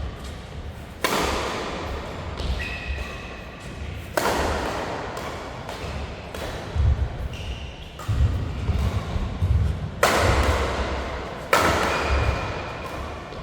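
Badminton doubles play on an indoor court: repeated low thuds from footwork and hits, with short shoe squeaks. Four sudden bursts of rushing noise each fade over a second or two.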